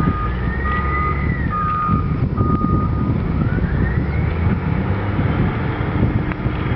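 Slag pot carrier running with a low, heavy rumble, while short warning beeps sound at one steady pitch in the first half, along with a tone that rises and falls twice as the pot is tipped to dump slag.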